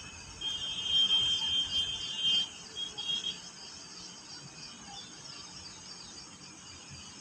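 A high, steady whistling tone lasting about two seconds, then a short repeat about a second later, over a steady high chirring like insects.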